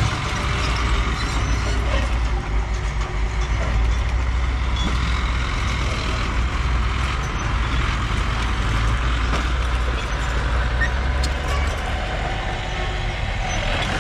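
Mini bulldozer's engine running steadily under load with a strong low hum, and a few light clicks over it.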